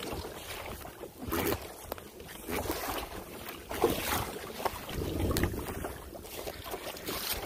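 Water splashing and sloshing around a kayak, rising and falling in uneven surges, with wind buffeting the microphone.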